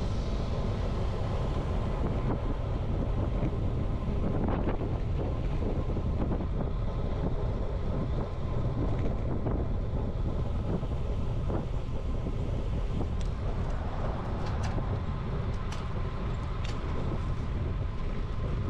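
Steady wind noise on the microphone of a camera riding along on a road bike, mixed with tyre noise on asphalt. A few sharp clicks come in the last few seconds.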